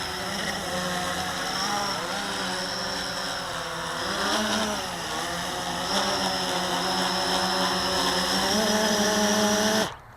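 Blade 350 QX quadcopter's electric motors and propellers buzzing in flight, the pitch of the whine shifting up and down as the throttle changes. The sound stops abruptly near the end.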